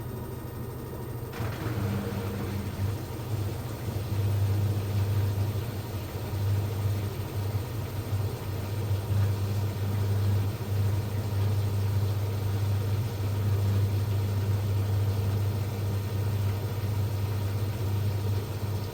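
LG F1292MD washing machine on its spin cycle: a steady drum-and-motor hum with a rushing noise above it, rising about a second in and getting louder again around four seconds. The machine has a squeak on spin.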